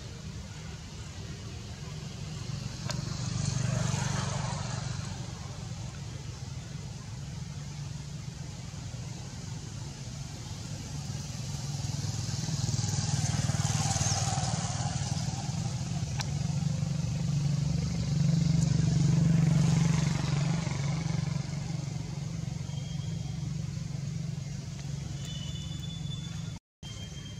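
Road traffic passing: three vehicles swell up and fade away, a few seconds in, around the middle and again a little later, over a steady low hum. The sound cuts out for a moment near the end.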